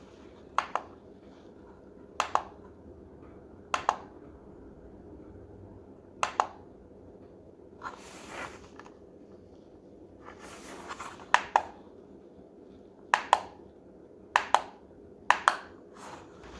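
Buttons on a La Crosse Technology wireless charging alarm clock clicking as they are pressed to set the light bar brightness. There are about nine presses, each a quick double click, spaced a second or two apart, with two soft rustles partway through.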